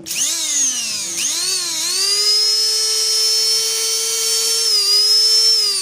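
Rewound juicer motor (a small brushed universal motor) running with a high-pitched whine. It starts abruptly, dips in speed twice in the first couple of seconds, then holds a steady speed, and begins to wind down near the end. The motor only starts when its shaft is given a push, a fault the repairer traces to the armature and commutator.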